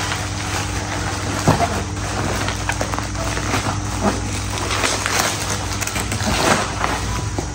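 Layers of turtle packaging being handled and pulled open: rustling and crinkling with scattered sharp crackles, over a steady low hum.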